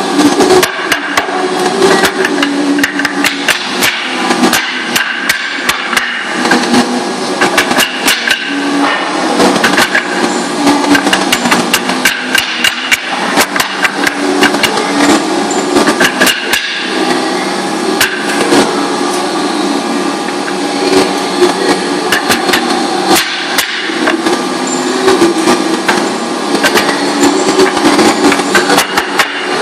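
A hand block knocked again and again against the edge of a tall stack of paper sheets to jog the sheets flush, in quick, irregular taps. A steady machine hum runs underneath.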